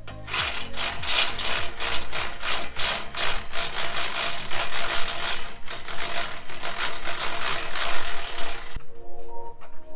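Fast, steady rattling clatter of tools at work on the bumper bolts, stopping abruptly near the end.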